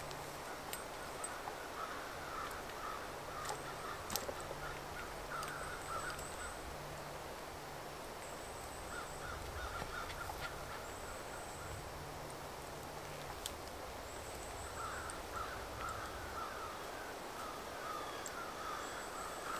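Forest ambience with birds calling in repeated spells of short, harsh notes, crow-like, and faint high thin chirps, with a few small clicks of twigs underfoot.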